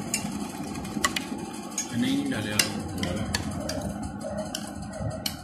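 Metal spoons clinking and scraping against ceramic bowls while food is eaten, with sharp clinks about once a second.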